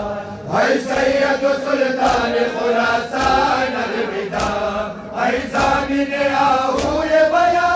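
Group of men chanting a noha, a Shia mourning lament, the lead reciters singing a melodic line into a microphone with others joining in. Sharp slaps of hands on bare chests (matam) land roughly once a second under the chant.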